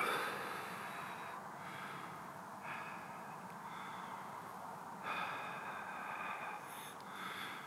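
A man breathing out heavily through the mouth: about three long exhalations, one after another.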